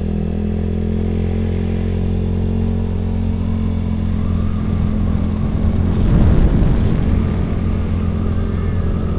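Motor scooter's engine running steadily while riding. From about halfway through, a rougher low rumble builds up over it and is loudest about six seconds in.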